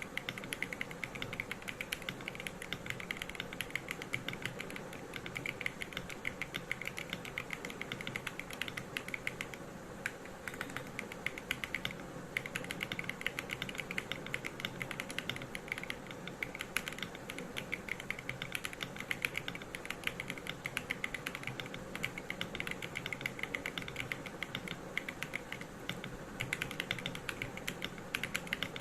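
Typing on an Akko PC98B Plus mechanical keyboard with Crystal Wine Red linear switches: a fast, continuous stream of keystrokes, pausing briefly a few times.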